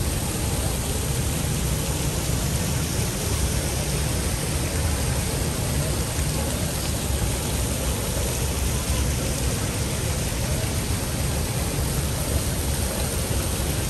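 Steady city-street noise: a low traffic rumble under an even hiss, with no breaks or distinct events.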